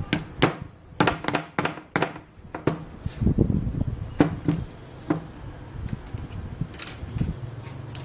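Irregular sharp clicks and knocks of hard objects being handled, about a dozen in the first five seconds. A low steady hum starts about seven seconds in.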